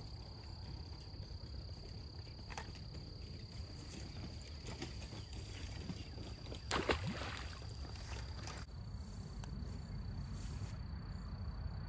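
Outdoor evening ambience: a steady high insect trill over a low rumble. The trill stops about three-quarters of the way through, and a short sharp noise stands out a little past halfway.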